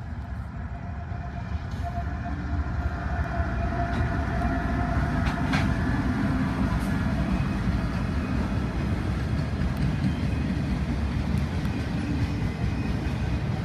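Norfolk Southern diesel freight locomotive approaching and passing, growing louder over the first few seconds, then a steady run of freight cars rolling by on the rails.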